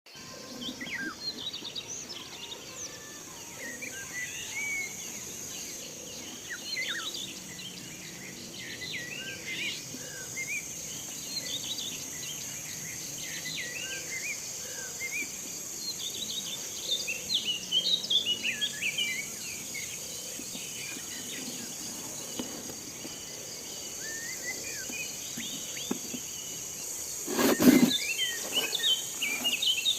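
Birds chirping and singing, many short calls throughout, over a steady high hiss. A single loud knock comes near the end.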